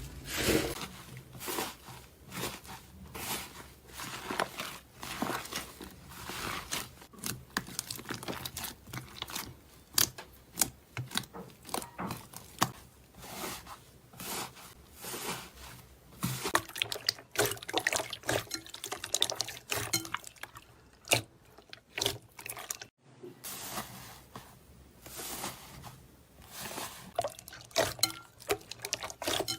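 Slime being squeezed and worked, giving irregular wet clicks, pops and squelches, with a brief break about two-thirds of the way through.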